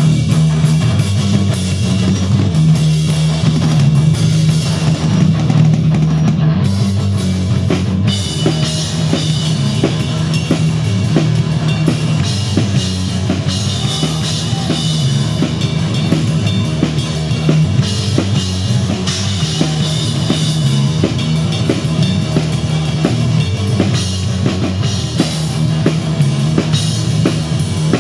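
Punk rock band playing live: electric guitar, electric bass and a drum kit, with a moving bass line under steady, busy drumming.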